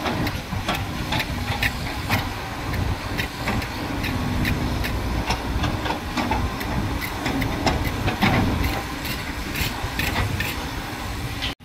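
Heavy diesel construction machine running steadily, with many short knocks and clanks throughout.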